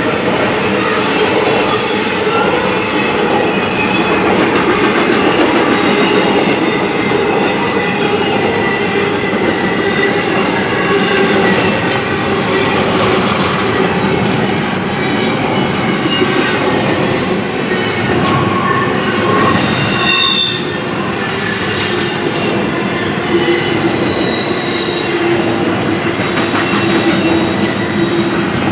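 Norfolk Southern intermodal train's double-stack well cars rolling past at a grade crossing: a steady rumble of steel wheels on rail with clacks over the joints, and wheels squealing in drawn-out high tones, most plainly in the last third. Heard from inside a car through the windshield.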